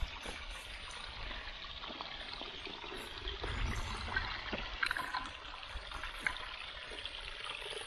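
Water trickling steadily through a beaver dam, a continuous even splashing hiss, with a few light clicks about five and six seconds in.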